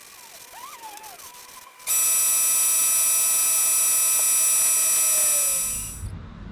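A paint spray gun hissing loudly as compressed air drives the paint out, with steady whistling tones in the hiss. It starts abruptly about two seconds in and fades away near the end.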